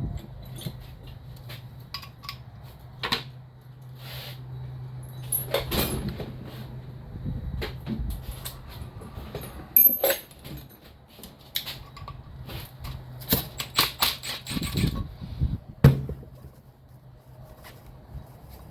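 Aftermarket slip-on motorcycle mufflers being handled and lifted out of their packaging: scattered knocks, clicks and packing rustle, with sharp knocks about ten seconds in and near the end and a run of quick clicks just before. A steady low hum runs underneath.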